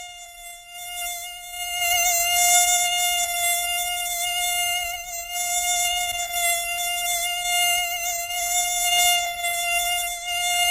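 Mosquito wing whine: a steady, high-pitched buzz that wavers slightly in pitch, growing louder over the first two seconds.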